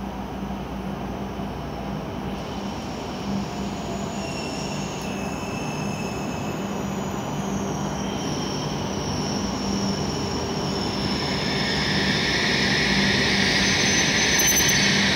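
W7-series Shinkansen high-speed train running into the platform and braking. It grows steadily louder as it approaches, and high whines fall slowly in pitch as it slows.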